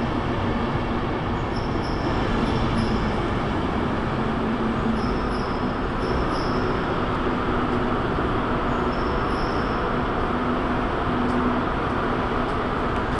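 A departing passenger train's coaches rolling past at low speed, a steady rumble and hum that carries on as the train pulls away, with a few faint high squeals in the first half.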